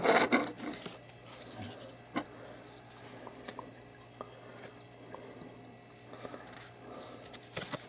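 Soft rubbing and rustling of cardboard and paper packaging being handled, with a few light clicks and taps as the box's parts are moved on the table.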